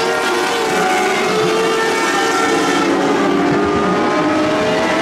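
A pack of winged lightning sprint cars racing on a dirt oval, several engines running at once at different pitches that slide up and down.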